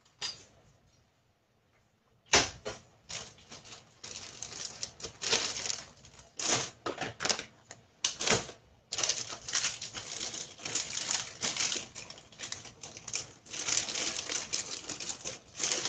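Pot of coconut chicken curry on a gas stove, simmering and bubbling with rapid, irregular pops and crackles, after a sharp knock about two seconds in.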